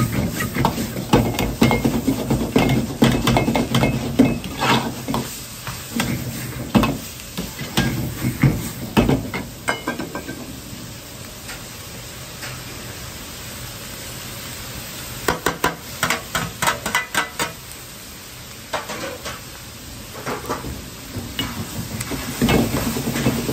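Minced pork and onion sizzling in a wok while a metal utensil is stirred through it, scraping and clanking against the pan. The clanking stops for several seconds midway, leaving only the sizzle, then comes back as a quick run of strikes.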